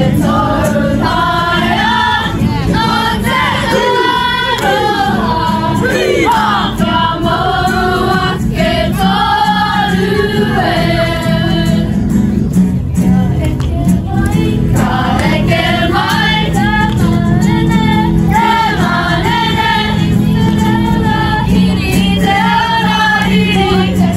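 Māori performance group of girls and young women singing a song together in chorus, amplified through microphones.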